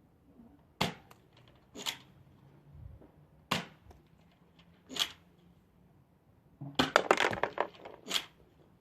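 A series of sharp cracks: single hits at about one, two, three and a half and five seconds in, then a quick clattering run of many hits near the end.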